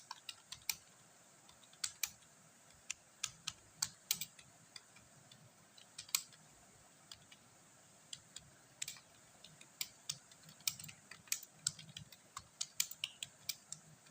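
Typing on a computer keyboard: irregular key clicks at an uneven pace, with a short pause a little past the middle.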